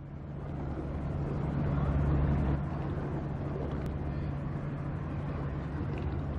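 Steady engine drone with a constant low hum and rumble under a rush of noise, fading in over the first couple of seconds and then holding level.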